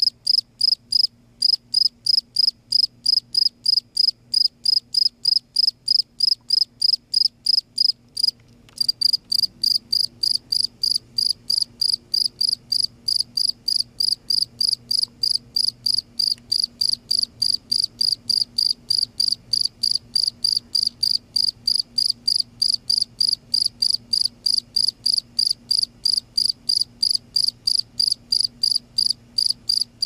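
A cricket chirping steadily, about three short high-pitched chirps a second, made by rubbing its raised forewings together. There is a brief break in the rhythm about eight seconds in, and a faint low hum underneath.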